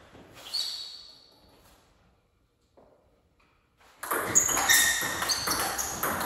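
Table tennis ball and paddles: one ball tick about half a second in, then a near-silent pause, then from about four seconds a quick run of sharp pings as the ball is struck back and forth and bounces on the table in a rally.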